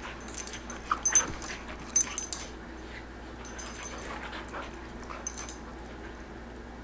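Two poodles play-wrestling, with short whimpers and brief scuffling sounds that come in a few quick clusters, most of them in the first half.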